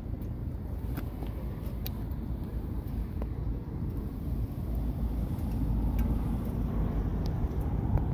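2011 Harley-Davidson Heritage Softail Classic's air-cooled V-twin engine idling, a steady low rumble that grows slightly stronger about halfway through.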